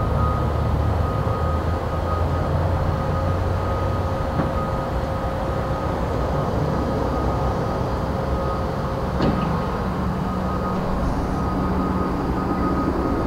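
A de Havilland Canada DHC-4A Caribou's two Pratt & Whitney R-2000 radial piston engines and propellers droning steadily on approach, with a constant high tone over a low hum. There is a short click about nine seconds in.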